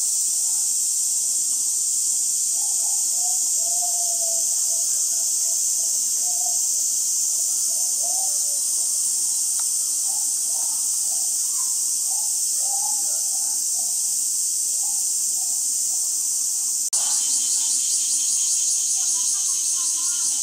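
A steady, high-pitched insect chorus with faint, distant voices murmuring underneath. About 17 seconds in, the chorus changes to a fast, even pulsing.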